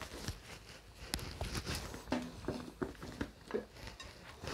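Quiet handling noises: scattered small clicks and knocks of plastic as a stick blender's motor unit is lifted off its mini-chopper bowl, with the blender switched off.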